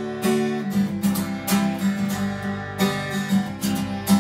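Acoustic guitar strummed in a steady rhythm, its chords ringing between strokes, played solo with no voice.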